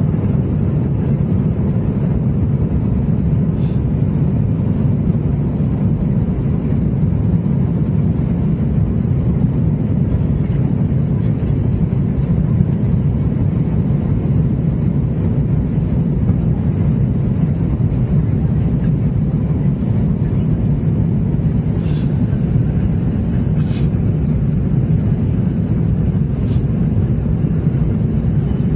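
Steady cabin noise of an Airbus A321 in flight, heard inside the cabin at a window seat over the wing: a low, even rumble of the engines and rushing air.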